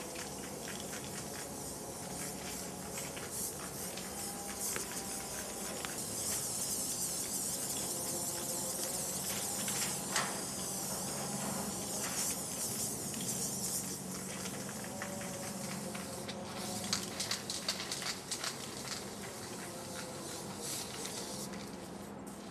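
Aerosol spray-paint can hissing as paint goes onto a freight car's side: one long spray in the middle, then short bursts toward the end, over a faint low steady hum.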